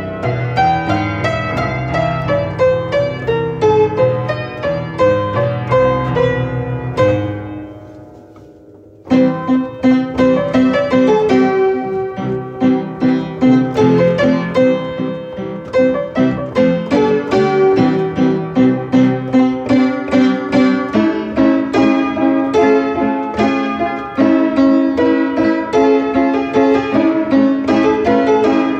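Piano music: a steady run of notes that dies away about seven seconds in, then starts again about two seconds later with repeated pulsing chords.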